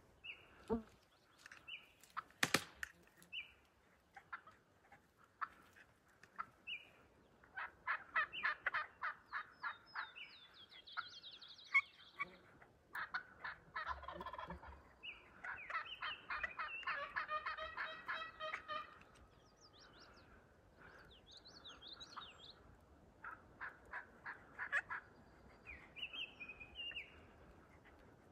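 Wild turkey gobbling in several rattling bouts, with songbirds chirping and a sharp click about two seconds in.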